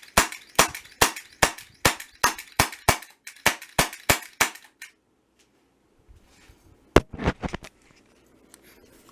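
Sig Sauer SP2022 CO2 BB pistol firing about a dozen shots in quick succession, roughly two or three a second, stopping about four and a half seconds in. About seven seconds in comes one more sharp crack, followed by a few lighter clicks.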